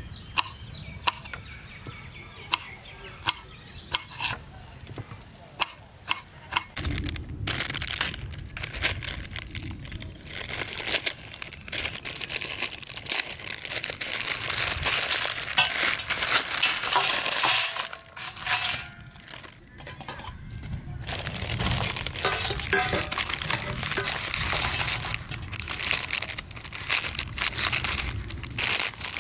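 Plastic Maggi instant-noodle packets crinkling and tearing as they are handled and opened, in long stretches of dense crackle. Scattered sharp clicks come in the first several seconds.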